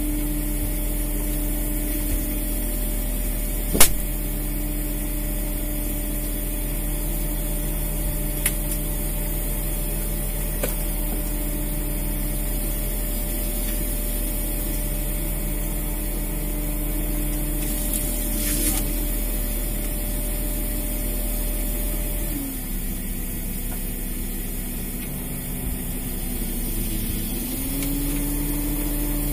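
A fishing boat's engine and machinery running with a steady drone and hum. The pitch steps down and up a few times, dips for several seconds about 22 seconds in, and glides back up near the end. A single sharp click comes about four seconds in.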